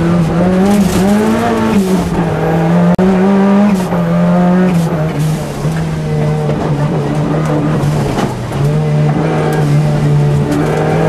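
Ford Sierra Cosworth rally car's turbocharged 2.0-litre four-cylinder engine under hard driving, heard from inside the cabin. The engine pitch climbs and falls back several times as the driver works through the gears and lifts off between bends.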